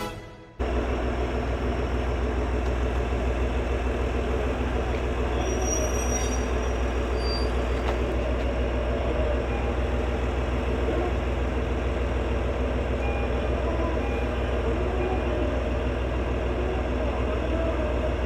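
JR Hokkaido KiHa 40 diesel railcar pulling into a station platform: its diesel engine drones low and steady under wheel and rail noise.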